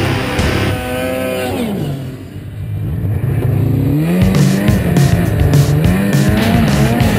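Two-stroke snowmobile engines. About a second in, one sled passes close by, its pitch falling away. From about four seconds a sled engine heard from the rider's seat revs up and down repeatedly as it accelerates along the trail.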